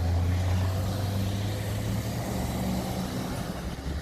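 Steady low drone of a road vehicle running, with an even hiss over it.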